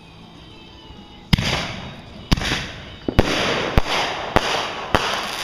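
Aerial fireworks bursting overhead: six sharp bangs, the first about a second in and the rest coming roughly every half to one second, each followed by a crackling hiss from the burning stars.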